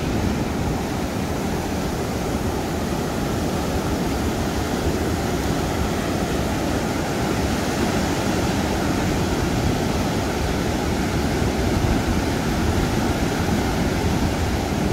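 Steady, even rush of water running without a break.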